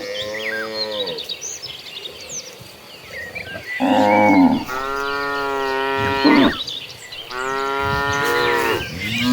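Cattle mooing: long, drawn-out moos one after another, three in all with a fourth starting at the end, each sagging in pitch as it trails off. Faint high chirps sound in the background.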